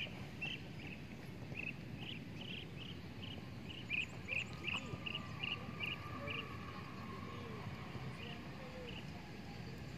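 A small animal chirping: a run of short, high chirps about three a second, most between about two and six seconds in, over steady outdoor noise.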